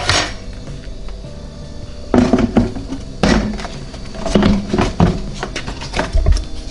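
Air fryer lid of an Emeril Lagasse Pressure Air Fryer Duet being set onto the pot and turned to lock. From about two seconds in there is a run of knocks, clunks and scrapes, over background music.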